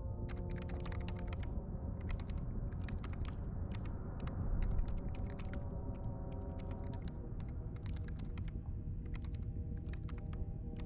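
Bursts of rapid clicking, like typing on a computer keyboard, in irregular clusters over a steady low droning score.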